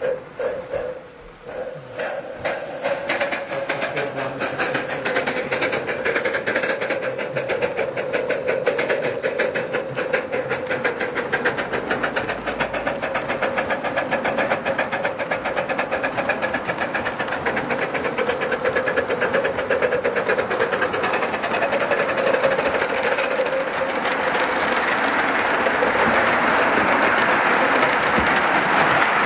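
Live-steam model locomotive running with its train: rapid, even chuffing of the exhaust beats over a steady hum, picking up about two seconds in. Near the end the sound gets louder and noisier as it runs past close by.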